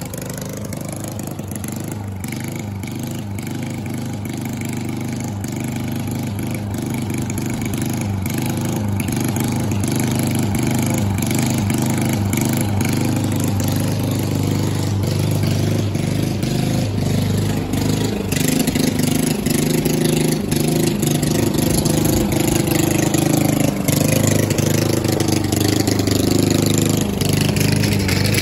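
Toro walk-behind gas lawn mower running steadily while cutting grass, its engine getting louder in the second half as it comes closer.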